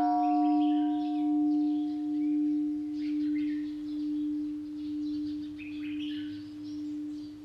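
A singing bowl just struck, its deep tone and fainter overtones ringing on and slowly dying away with a gentle wavering about once a second, then cutting off near the end.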